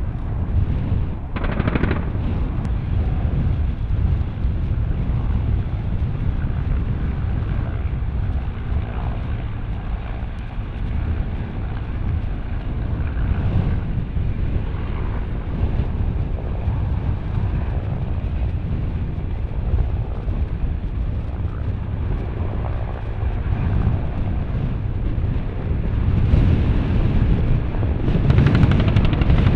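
Super Puma twin-turbine helicopter's rotor and turbines running close by, a dense steady rumble. It swells louder near the end as the helicopter lifts off.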